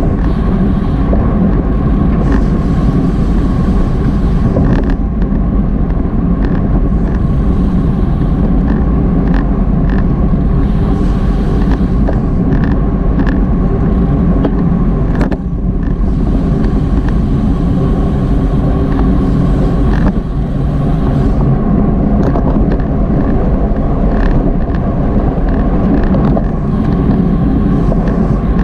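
Steady rush of wind and road noise on a racing cyclist's Garmin VIRB action camera microphone at speed, with a few sharp clicks scattered through it.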